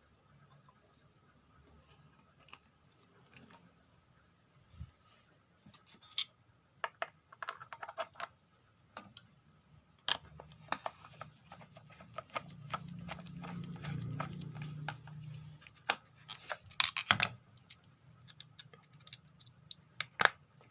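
Plastic parts of a shower head being handled and fitted back together after its seal is reseated: scattered clicks, knocks and scrapes, busiest in the middle, with a low rumble of handling partway through.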